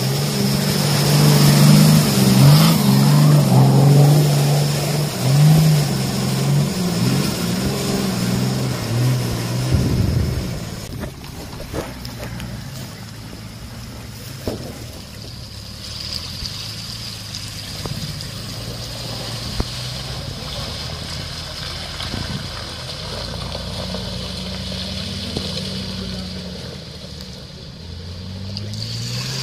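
Off-road SUV engine revving hard and unevenly under load for about ten seconds, then settling to quieter, steadier running, with a few short knocks.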